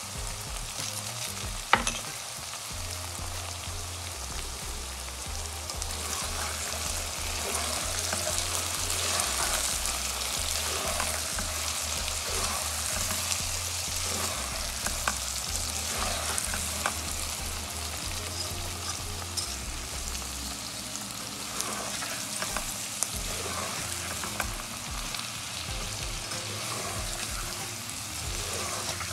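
Okra, onion and tomato sizzling in hot oil in a granite-coated nonstick wok while a spatula stirs and scrapes through them, with one sharp knock about two seconds in.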